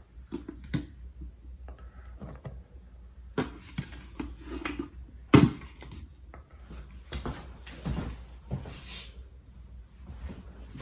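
Bread flour being scooped with a metal measuring cup and tipped into a large mixing bowl: soft swishes of flour with scattered taps and knocks of the cup against the container and bowl, one louder knock about five seconds in.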